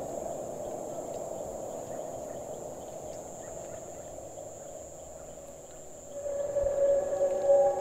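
Ambient sound-design bed: a constant thin high tone over a low, noisy haze, joined about six seconds in by several held low drone tones that grow louder.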